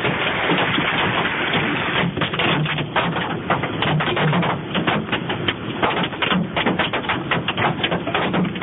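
Hail coming down hard: a dense, rapid, irregular clatter of hailstones hitting, over a steady hiss.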